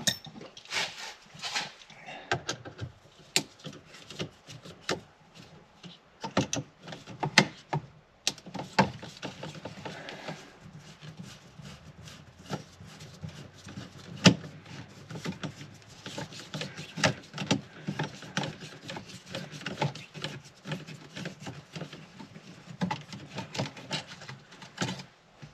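Irregular clicks, taps and light knocks of hand tools and small parts being handled at a car's steering column, with a faint steady low hum underneath.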